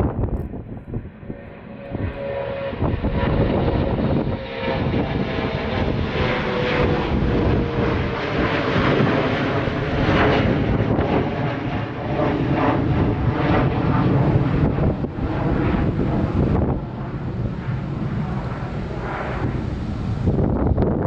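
Boeing 737-700 airliner's CFM56 jet engines roaring as it lands. A whine slides slowly lower in pitch as the jet goes past.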